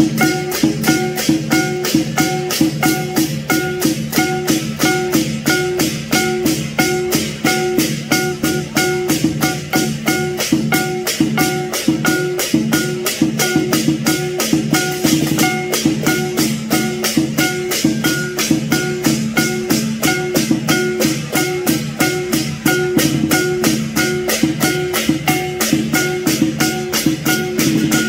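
Lion dance percussion: a drum, cymbals and gong playing a fast, even beat, with the ringing of the metal instruments sustained underneath.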